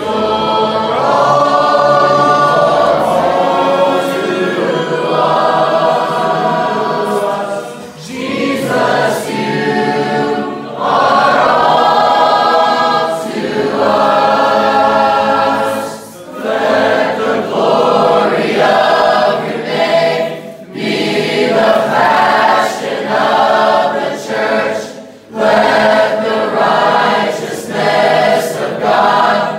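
A group of people singing a Christian worship song together, line by line with short breaks between phrases.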